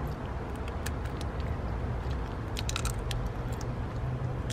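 Papery husk of a whole cacao bean cracking as it is bitten and peeled off: scattered small crackling clicks, with a quick cluster of them a little past the middle.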